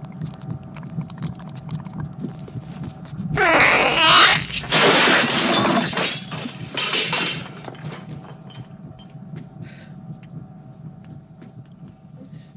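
Horror film soundtrack: a steady low hum, broken from about three and a half seconds in by a loud, harsh creature shriek and hiss lasting about four seconds, then the hum again with faint clicks.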